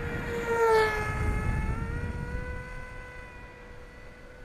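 RC flying wing's motor and propeller whining as it flies past: the pitch drops sharply about a second in, then holds steady as the sound fades. Wind rumbles on the microphone underneath.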